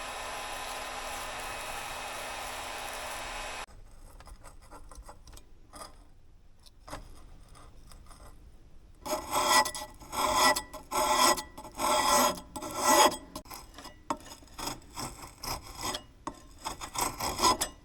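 Old adhesive-backed sanding disc being scraped off the sander's disc wheel: repeated rasping scrapes, about two a second, starting about nine seconds in. At the start a steady electric hum cuts off abruptly after about three and a half seconds.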